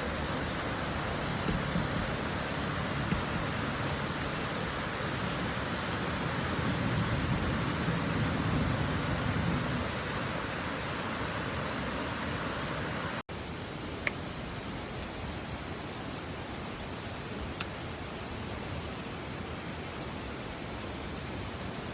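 Mountain stream murmuring over rocks, a steady rushing of water. About halfway through the sound cuts briefly and resumes slightly quieter.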